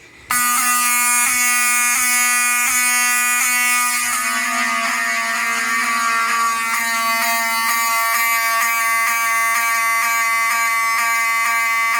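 Wheelock mechanical horn strobes sounding in alarm on continuous: a loud, steady buzzing blare that starts abruptly a moment in. A regular tick runs through it and comes faster after about four seconds.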